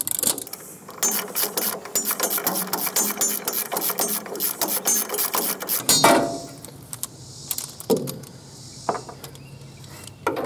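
Hand ratchet clicking fast as a socket works a manifold nut loose on a Ford 8N tractor engine. The clicking stops about six seconds in with a single knock, then comes back only in a few scattered clicks.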